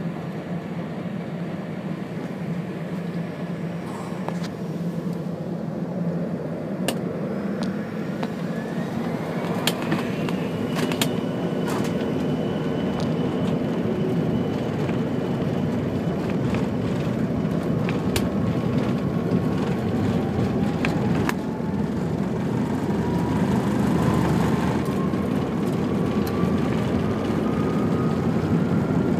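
An Embraer ERJ-145XLR's Rolls-Royce AE 3007 turbofan engines, heard from inside the cabin, spooling up for takeoff. A steady engine noise grows louder as the jet starts its takeoff roll, with whines rising in pitch, the first about a third of the way in and another slowly climbing through the last third. Sharp clicks and rattles come now and then.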